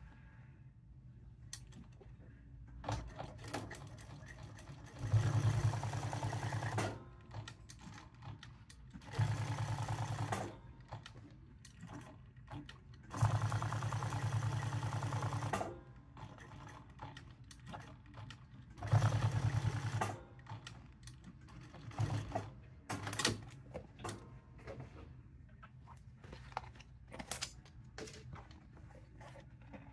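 Jack S5 industrial sewing machine stitching a leather patch onto a hat, set to 600 stitches per minute, running in four short runs of steady stitching a few seconds apart, then two brief bursts near the end. Small clicks and knocks come between the runs.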